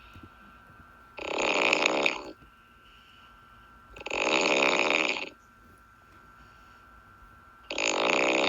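A person snoring: three snores, each about a second long, about three seconds apart.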